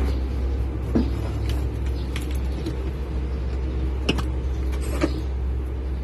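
A steady low mechanical hum, with a handful of sharp clicks and knocks from truck dashboard wiring and its connectors being handled.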